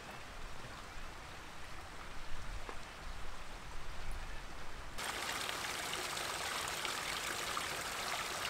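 Footsteps on a rocky trail with a few faint short chirps. About five seconds in, this changes abruptly to the steady rushing splash of a small cascade of water tumbling over boulders, the loudest sound.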